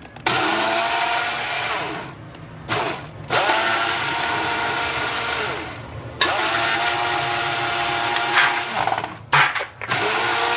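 Personal single-serve blender motor run in several pulses of two to three seconds each, with short blips between. Each pulse starts with a rising whine as the motor spins up, blending a thin liquid marinade of oil, tequila and honey.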